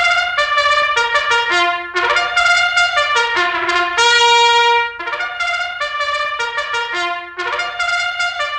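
Background music: a bright melody of quick notes, with a short phrase that is played again about halfway through.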